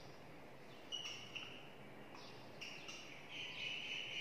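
Felt-tip marker squeaking on a whiteboard while a word is written: a few short, high squeaks starting about a second in, the longest near the end.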